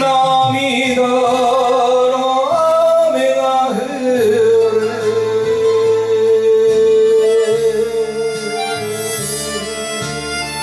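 A man singing an enka ballad into a microphone over a recorded backing track, holding one long wavering note from about four seconds in.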